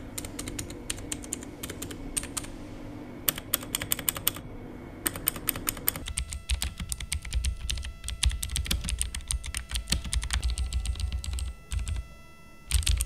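Typing on the PC Power K98 mechanical keyboard with blue switches: quick runs of sharp, clicky keystrokes. From about halfway a low hum sits under the clicks, and the typing pauses briefly near the end.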